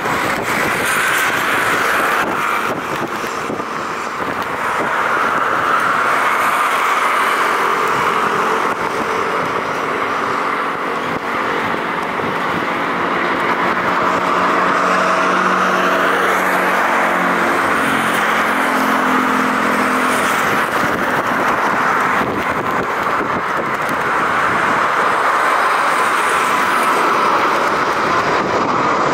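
Airbus A330-300's twin jet engines on final approach, a loud steady roar with a hum of engine tones that comes in about a third of the way through and slowly drops in pitch before fading back into the roar.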